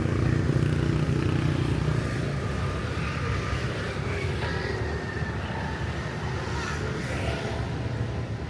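A motor vehicle's engine running close by, strongest for about the first two seconds and then fading into the street background.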